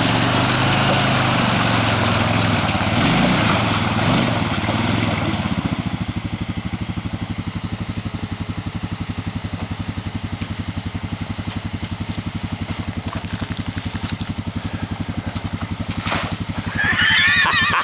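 Arctic Cat 454 ATV's single-cylinder four-stroke engine revving under load for about six seconds, then settling to a steady, lower, pulsing run. Near the end a short high wavering sound rises over it.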